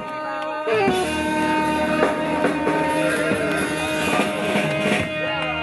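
Live band playing an instrumental passage with no singing; the fuller band, low end included, comes in under a second in.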